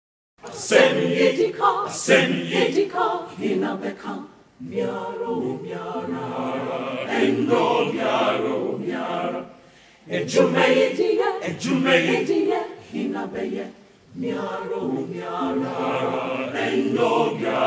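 A group of voices singing unaccompanied, in phrases of about four to five seconds with short breaks between them.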